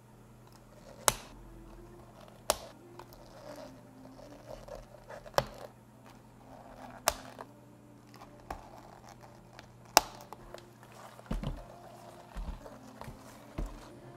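Plastic dome lids snapped onto iced-drink cups: about five sharp clicks, a second or more apart, with light plastic crinkling between them. Near the end, a few dull thumps as the cups are handled on the counter.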